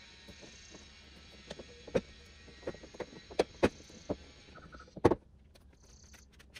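Hand work on a car's hood hinges: a string of sharp clicks and knocks of metal parts being handled, the loudest knock about five seconds in.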